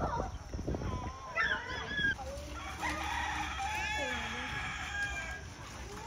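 A fowl crowing: a couple of short calls, then one long drawn-out crow starting about three seconds in and lasting around two seconds.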